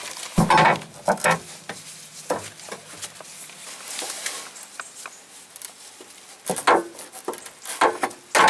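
Irregular metal clinks and knocks of hand tools and loose suspension parts being handled under the vehicle, loudest about half a second in and again near the end.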